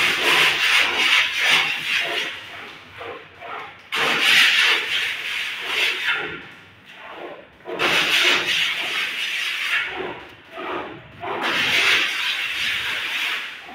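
Hand plastering tool scraping and smoothing cement render across a wall in four long strokes, each lasting two to three seconds with short pauses between.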